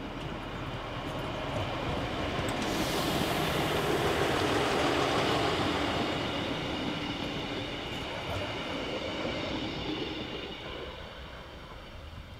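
Class 628 diesel multiple unit passing by: the engine and wheels on the rails grow louder, are loudest around the middle, then fade away.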